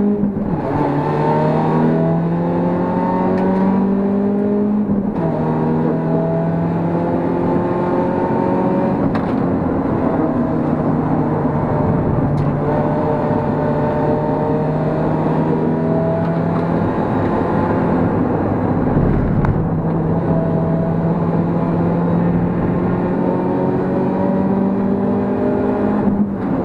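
BMW E36 318ti Compact's decatted M44 four-cylinder engine pulling at full throttle, heard from inside the cabin. Its pitch climbs steadily, drops at a gear change about five seconds in, and dips briefly near twenty seconds before climbing again.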